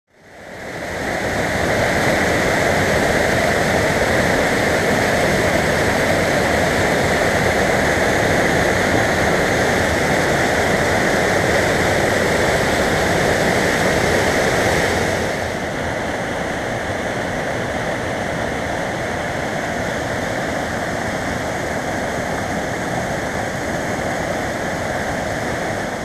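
Mountain stream of white water rushing and splashing over boulders, a steady dense rush that fades in at the start. About halfway through it steps down to a lower, duller level.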